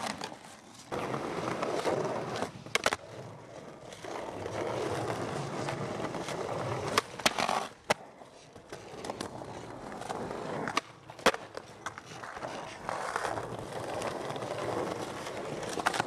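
Skateboard wheels rolling over stone paving, with several sharp wooden clacks of the board popping and landing along a stone ledge.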